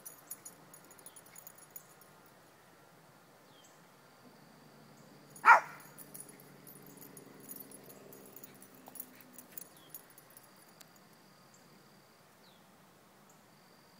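A small dog gives a single sharp bark about five and a half seconds in.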